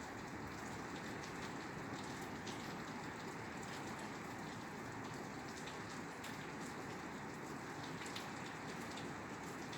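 Steady rain falling on a roof, an even hiss with scattered individual drops ticking through it.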